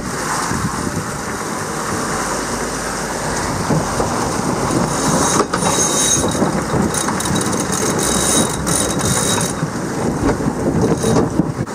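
Sailing yacht driving through waves: a steady rumble of wind and rushing water, with spray coming over the bow about five seconds in and hissing against the sprayhood for several seconds.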